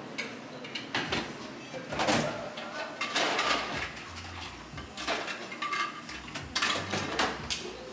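Café clatter: a string of irregular knocks, clinks and rustles from dishes and handling, with faint background voices.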